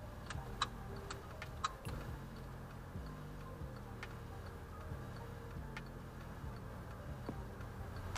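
Low engine hum inside a car rolling slowly, with scattered sharp ticks and clicks, several close together in the first two seconds and a few single ones later.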